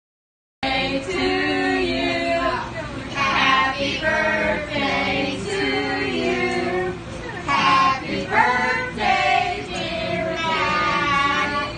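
Song with high sung vocals. It cuts in suddenly about half a second in, after digital silence, and runs on with long held notes.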